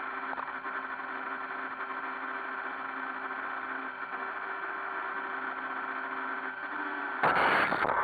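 iRobot Roomba 560 robot vacuum running, its motors and brushes making a steady whirring hum with a few held tones. About seven seconds in, a sudden, much louder noise cuts in.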